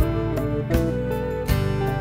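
Background music: a strummed acoustic guitar over a steady beat, about one strike every three-quarters of a second.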